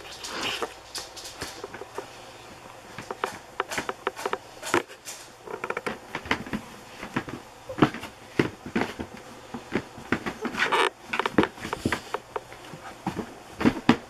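Aussie labradoodle puppies (Australian Shepherd × Labradoodle) scuffling and play-fighting on soft bedding, with an irregular patter of paws and small knocks and a few short yips.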